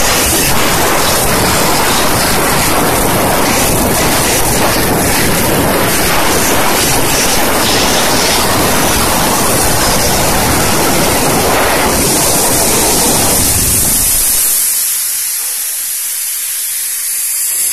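High-pressure steam jet from a JNX-36 steam cleaning machine blasting an engine cylinder head: a loud, steady rushing hiss. About fourteen seconds in, the deep rush drops away and a thinner, high hiss is left.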